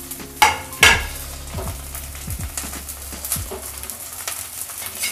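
Diced carrots, peas and capsicum tipped from a plate into a hot kadai of oil: two sharp clatters about half a second and a second in, then the vegetables sizzling steadily in the oil.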